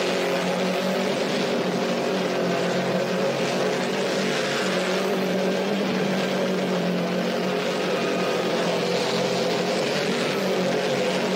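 Pickup truck's engine held at steady high revs through a burnout, its rear tyres spinning in place, with a hiss of tyre noise over the engine.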